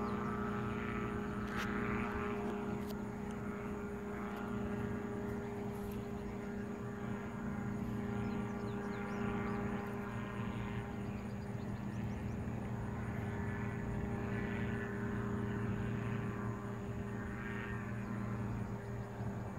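Powered parachute's engine and propeller droning steadily in flight, an even, low hum whose upper tones swell and fade gently.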